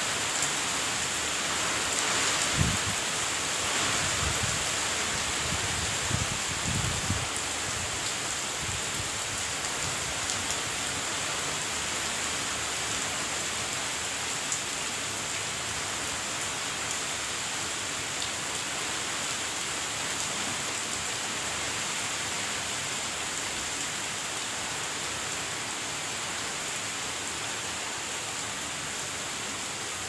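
Steady rain falling, an even hiss of drops throughout, with a few sharper knocks in the first several seconds.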